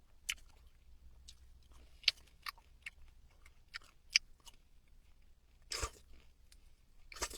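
Pomegranate seeds being chewed close to the microphone: scattered small crunches and clicks, with two longer, louder noises near the end.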